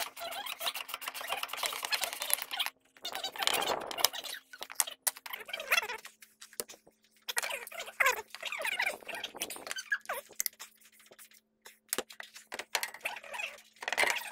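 Sped-up hand-tool work: rapid ratchet clicks and clinks of metal tools and parts, pitched up by fast-forwarding into chirpy, squeaky chatter, with short pauses between bursts. A faint steady low hum lies underneath and drops slightly in pitch about five seconds in.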